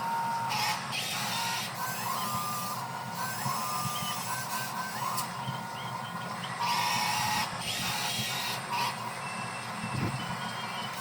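Electric drive motors and gears of a HUINA 1583 radio-controlled toy bulldozer whirring, starting, stopping and changing pitch as it is driven. Louder bursts of grinding come about a second in and again around seven seconds in.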